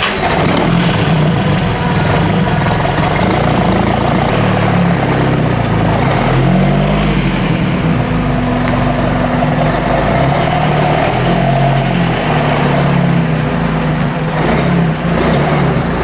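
Carbureted engine of an early Toyota pickup running cold, its pitch wavering unevenly up and down as the truck drives slowly forward.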